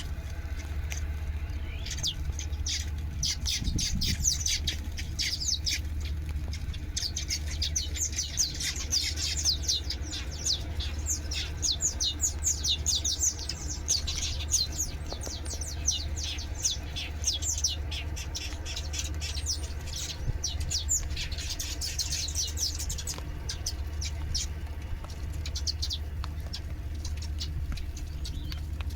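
Many small birds chirping in quick, high, falling notes, busiest through most of the stretch and thinning near the end, over a steady low hum.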